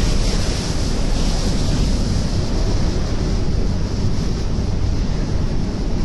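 Steady wind buffeting the microphone over the rush of rough, breaking sea alongside a container ship.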